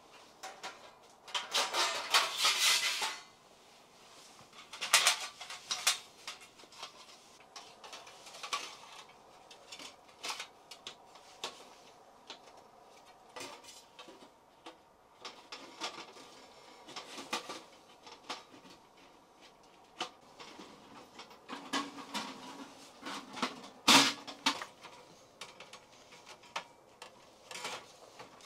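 Irregular clinks, knocks and rustling of things being handled, like camp cookware and utensils being moved about. A longer rustling scrape comes near the start, and one sharper knock near the end.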